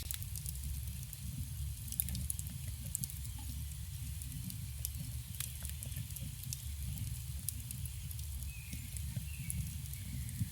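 Campfire burning: a steady low rumble of flames with many small, sharp crackles and pops from the burning wood. Faint short chirps, likely distant birds, come in near the end.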